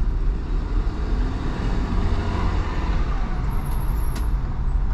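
Steady engine and road rumble of a motorhome crawling through congested traffic, heard from inside the cab.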